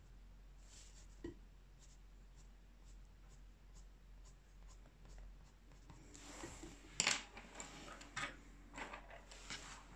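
Faint strokes of a black coloured pencil scratching on paper. From about six seconds in come louder rustling and handling noises, with a sharp click about seven seconds in.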